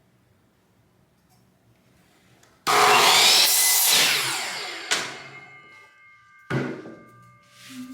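An electric power saw starts about two and a half seconds in and cuts through a wooden board, then its blade winds down with a falling pitch. Near the end comes a sharp knock followed by a brief ringing note.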